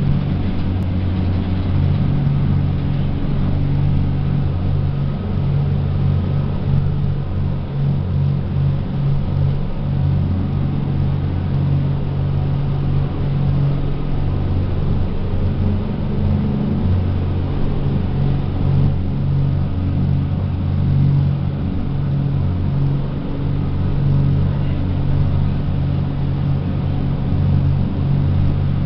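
Passenger speedboat's engines running at speed: a loud, steady low drone with a rushing hiss over it.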